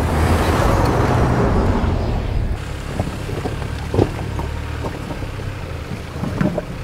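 2024 Toyota Land Cruiser on a dirt trail: engine and tyres running over loose dirt with a spray of grit that fades over the first couple of seconds. Then it crawls slowly over rocks, with a low engine hum and scattered knocks and crunches of tyres on stone, the sharpest about four seconds in.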